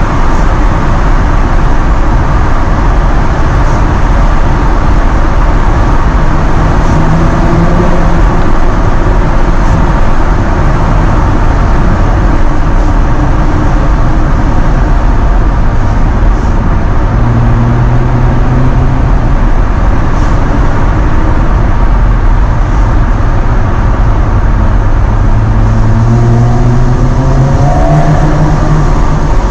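Jaguar F-Type's engine and exhaust on the move, its note climbing and falling several times as it accelerates, most clearly climbing near the end, over constant road noise.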